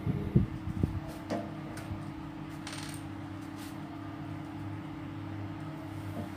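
Small hard plastic Lego pieces clicking and clattering as they are handled and pressed together: a cluster of knocks in the first second, then a few lighter clicks and a short rattle about three seconds in. A steady low hum runs underneath.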